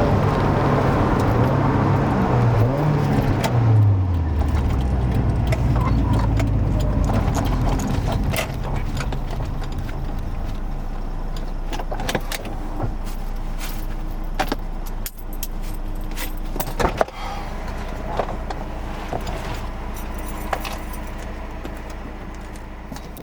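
Mazda Miata NA 1.6 inline-four engine coming down off the revs, its pitch falling until it settles to a steady idle about four seconds in. Several sharp clicks and light rattles sound over the idle in the second half.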